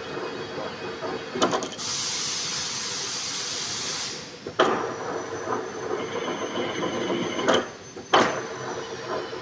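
Manual lathe running with a steady hum, broken by several sharp metallic clicks and knocks. A loud hiss starts about two seconds in and lasts about two seconds.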